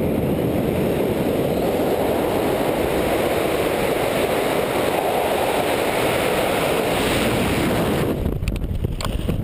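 Wind rushing over the microphone during a cliff jump's freefall, a loud, steady rush. About eight seconds in it eases as the parachute canopy opens, with a few sharp snaps.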